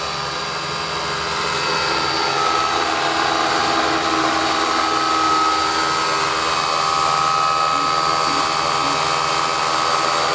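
Radio-controlled scale model Westland Lynx helicopter flying in low and close, with rotor noise and a steady high whine from its drive. It grows louder about two seconds in as it comes near.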